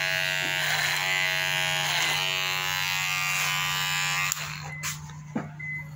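Electric hair clippers buzzing steadily while cutting a man's hair, the buzz swelling about every second and a quarter. About four seconds in the buzz drops off sharply and becomes much quieter, with a few light clicks after.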